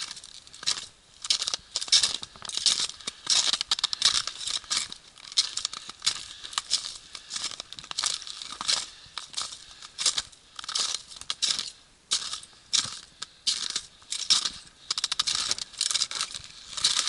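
Footsteps crunching in shallow snow at a steady walking pace, about one and a half steps a second.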